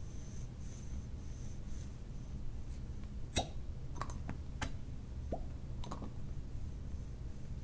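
Cupping cup being pulled off and set back on skin during fire cupping: a handful of short pops and clicks, the sharpest about three and a half seconds in, with a brief falling squeak a couple of seconds later.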